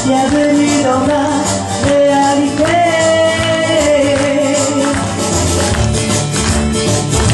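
A woman singing live into a microphone over an upbeat song accompaniment with a steady percussion rhythm; a deeper bass line comes in more strongly about five seconds in.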